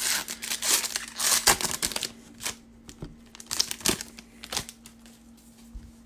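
A foil trading-card pack being torn open, its wrapper crinkling and crackling for about two seconds. A few sharp clicks follow as the cards are handled, and the handling goes quieter near the end.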